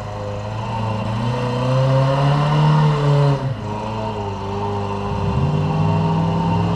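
Off-road rock crawler's engine working under load on a rock climb. The revs rise for a couple of seconds, drop off suddenly about three and a half seconds in, then pick up again and hold steady.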